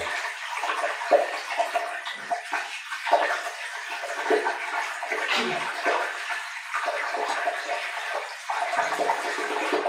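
Water poured slowly into a ceramic Indian squat toilet pan, running down the bowl into its P-trap, which is blocked with cement debris.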